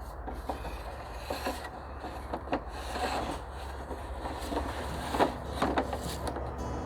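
Irregular wooden knocks and rustling from sticks and branches being handled during shelter building, the sharpest knock about five seconds in, over a steady low rumble.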